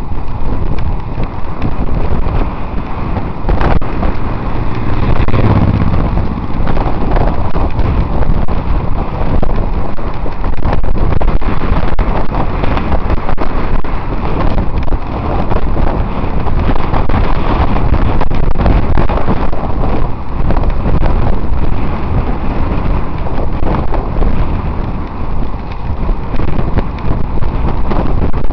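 Loud, steady wind buffeting the camera microphone of a road bicycle descending at speed in a group ride.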